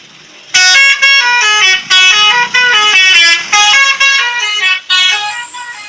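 A truck's telolet horn, a multi-tone musical air horn, playing a melody very loudly from about half a second in: a run of short and held notes stepping up and down in pitch, with brief breaks between phrases.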